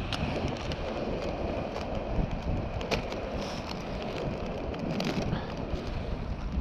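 In-line skate wheels on Twin Cam rustproof bearings rolling over asphalt, a steady rumble with a few scattered clicks, under heavy wind buffeting on the microphone.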